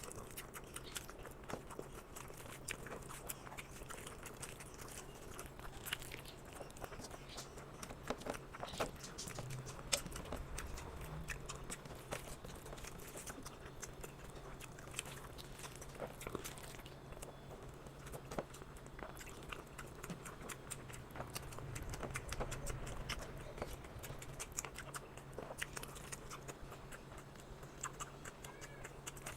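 Close-up chewing of rice and chicken curry, with many small wet mouth clicks and smacks. A steady low hum runs underneath.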